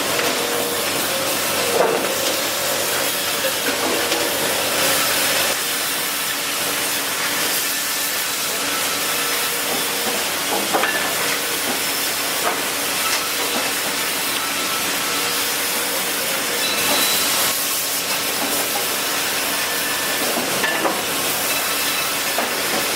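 Chainsaw running steadily, a dense even noise with a faint whine over it and a few brief louder spikes.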